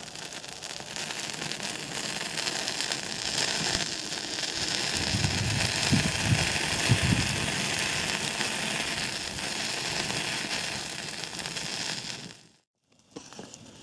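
Swedish candle log fire burning with a steady crackle and hiss of flame, with a few low rumbles about halfway through.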